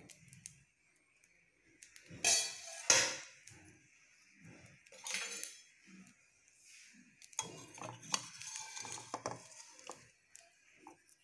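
Metal pan and cooking utensils clattering and scraping while an appam is cooked and handled in its pan. There are sharp knocks about two seconds in, another around five seconds, and a busier run of clinks and scrapes near the end.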